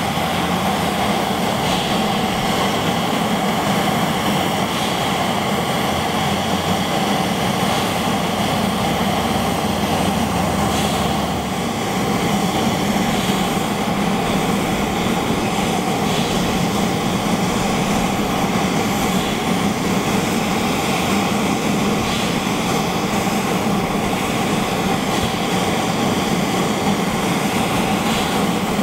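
Turbine engine of a Bell Boeing MV-22 Osprey running steadily on the ground: an even whine over a low hum, at a constant level. A deeper rumble underneath drops away about twelve seconds in.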